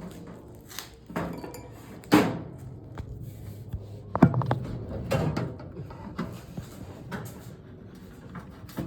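Irregular knocks and clunks of things being handled and moved, with sharper bangs about two and four seconds in.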